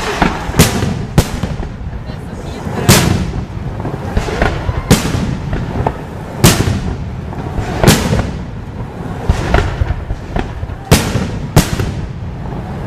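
Fireworks display: aerial shells bursting overhead in a series of about nine sharp bangs, one every second or two, with a steady rumble between them.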